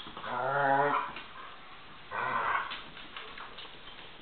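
A dog growling in play while tugging on a toy: a longer, wavering growl near the start and a shorter, rougher one about two seconds in.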